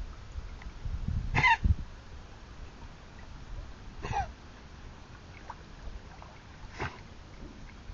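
A swimming Labrador's short, sharp breaths at the surface, three of them a couple of seconds apart. A low rumble swells around the first and loudest.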